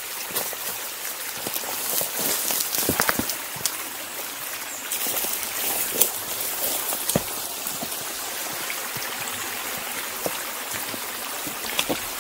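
Shallow creek trickling, with scattered splashes and knocks of footsteps as someone wades into the water.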